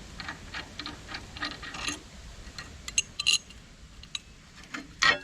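Irregular light metallic clicks and clinks of tools and small metal parts being handled on the mulcher, the blade disc's nut freshly loosened, with a louder clink about three seconds in and another near the end.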